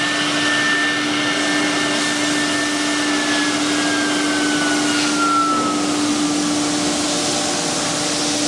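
CNC nesting router and its dust extraction running steadily: a dense steady noise with a constant low hum. A high whine slides down in pitch between about three and six seconds in.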